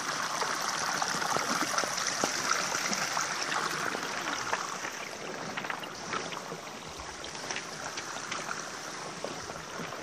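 A small brook running and trickling down among beach cobbles, where it sinks into the stones and flows on out of sight beneath them. A steady watery rush with many small splashes, a little quieter from about halfway through.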